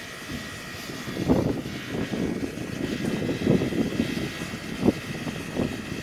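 Soviet L-class 2-10-0 steam locomotive with steam hissing steadily under a thin high whine, broken by irregular louder gusts of steam noise.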